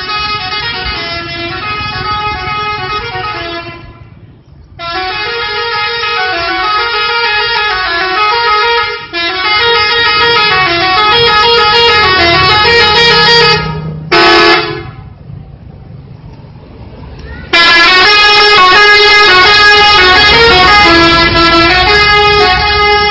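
Telolet bus horn playing a quick, repeating multi-tone tune, a few notes stepping up and down, in several long stretches with breaks between them. About fourteen seconds in there is one short single-note honk.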